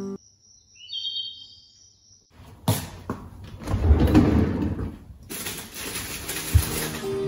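A refrigerator's bottom freezer drawer being pulled open on its runners, with knocks and rattling as a hand reaches into it. A few short high chirping tones come about a second in.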